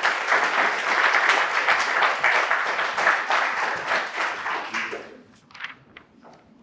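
An audience applauding, dying away after about five seconds with a few last claps.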